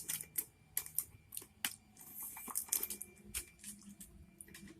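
Crinkly snack bag rustling in the hands, with scattered small clicks and crackles.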